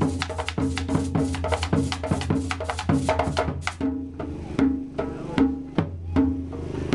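Background music with a steady percussive beat of drum and wood-block strikes over a bass line.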